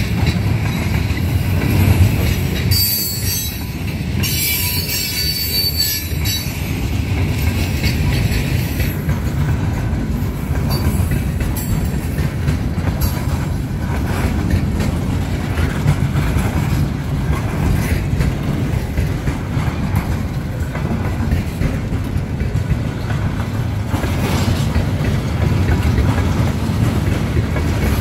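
Freight train cars rolling past, with a steady low rumble of wheels on rail. Steel wheels squeal on the rails from about three to six seconds in, and briefly again near the end.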